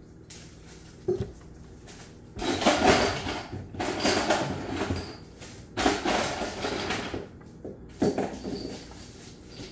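Ice cubes clattering into a plastic sandwich bag to make an ice pack, in several bursts, after a single knock about a second in.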